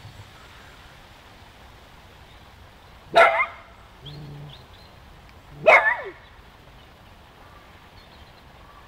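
A dog barking at a hedgehog: two short, loud barks falling in pitch, about two and a half seconds apart.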